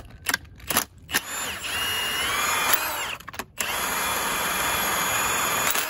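Handheld power tool running in two long runs with a short stop near the middle, its whine rising and falling, spinning the top nut off a Civic front strut held in a spring compressor. A few sharp clicks come before it starts.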